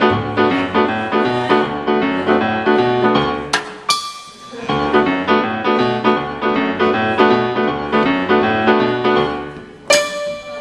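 Piano playing chords in a steady rhythm, with a short break about four seconds in.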